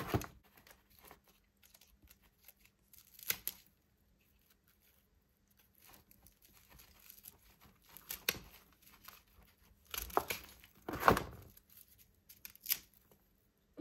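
A dahlia tuber clump being divided by hand: pruning shears snipping at the crown and tubers being pulled and broken apart, with dry soil and roots rustling. An uneven run of snips, cracks and tearing sounds, loudest about ten to eleven seconds in.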